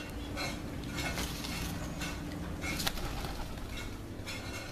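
Bird sounds in a tree where a wild pigeon is perched: a string of short calls spaced unevenly, a few each second, over a low steady hum.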